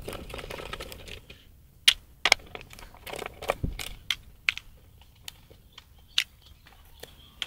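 Small metal guitar hardware being handled: a scatter of sharp, irregular clicks and taps as the toggle switch's ring nut and washer are unscrewed by hand and lifted off an electric guitar body.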